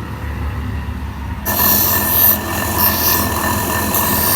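A power grinder running with a low hum, then biting into metal about a second and a half in: a loud, harsh grinding with a high squeal.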